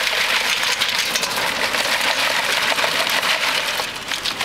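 Ice cubes pouring from a plastic cooler into a bucket: a dense, continuous rattling clatter that dips briefly near the end.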